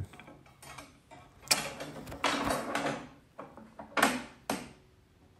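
Hercules table saw's bevel-tilt mechanism being cranked toward 45 degrees: gears grinding and rattling, with several sharp clicks and knocks. The tilt mechanism binds through this range, and the tilt bends the throat plate up.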